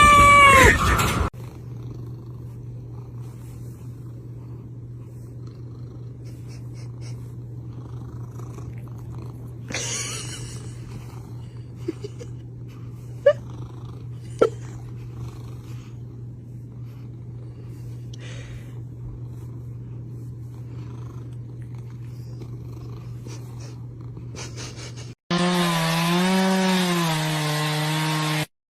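Domestic cat purring steadily for over twenty seconds, with a few sharp clicks partway through. A falling meow is heard at the start, and the purring gives way to a different wavering pitched sound near the end.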